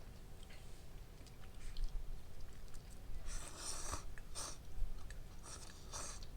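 A person eating close to the microphone: several short, noisy bursts of chewing and slurping, mostly in the second half.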